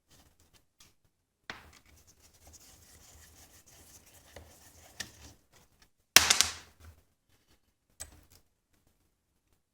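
Metal parts and hand tools being handled while a vise's bolts are loosened: a stretch of scraping and rubbing with small clicks, then a short, loud metallic clatter about six seconds in and a single knock near the end.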